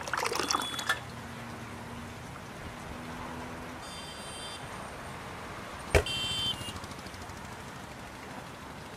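Tea poured from a height out of a steel tumbler, a short splashing pour that stops about a second in. About six seconds in a glass clinks once with a brief high ring.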